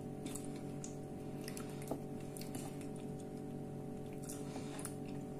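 Metal fork clicking against a plate while scooping scrambled eggs, with one sharper click about two seconds in and soft wet eating sounds, over a steady low hum.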